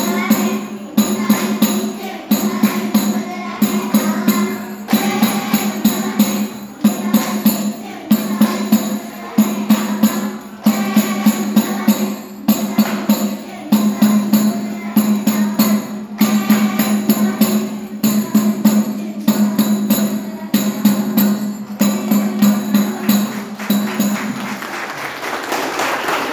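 Saman dance: a row of kneeling girls clapping and slapping in fast, tightly synchronized rhythmic bursts along with music. The clapping stops near the end.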